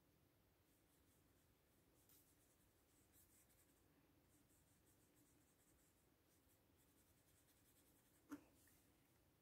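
Very faint scratching of a watercolour brush being stroked across paper, with one sharp click near the end.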